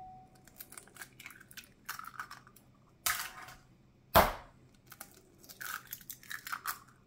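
Eggs being cracked open over a glass bowl: two sharp taps of shell, about three seconds in and a louder one about four seconds in, with small crackles and clicks of shell being pulled apart in between.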